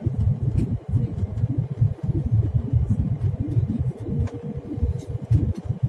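Airliner cabin noise on the approach: a low, uneven rumble of engines and airflow.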